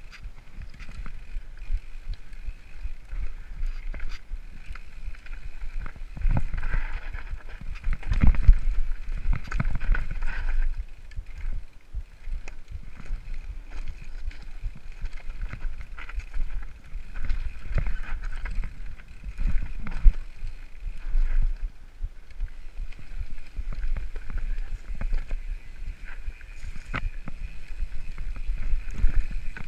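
Mountain bike riding fast down a rocky trail, heard from a camera mounted on the rider: wind rumbling over the microphone, tyres on loose stones and the bike rattling, with frequent sharp knocks as it hits rocks.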